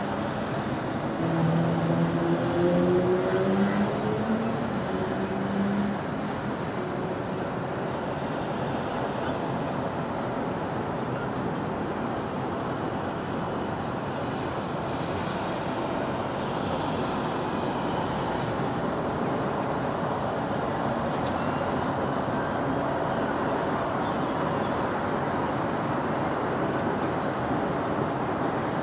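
Steady road traffic noise from a main road. In the first few seconds one vehicle's engine climbs in pitch in steps as it accelerates past, the loudest moment, before the steady traffic noise carries on.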